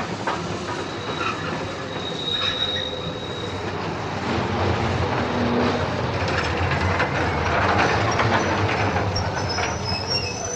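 Passenger train running on the rails: steady rolling rumble and clatter of the wheels over the track, with a brief high wheel squeal about two seconds in.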